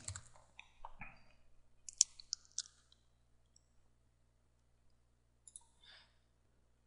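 A few faint computer keyboard keystrokes in the first three seconds as a sentence is finished, then two faint clicks a little after five seconds in.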